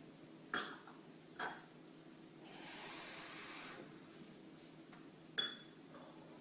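Glassware being handled on a hard surface: two light knocks early, a steady hiss lasting just over a second in the middle, and another clink near the end that rings briefly.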